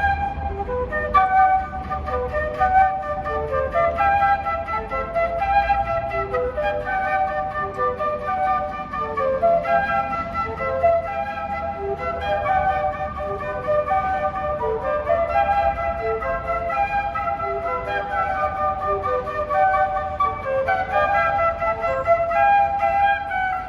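Flute playing a continuous melody of short and held notes, over a low rumble.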